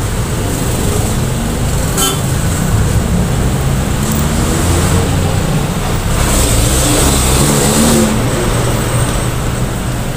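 Steady road traffic noise with passing motor vehicles, one engine rising and passing from about six to eight seconds in. A brief click about two seconds in.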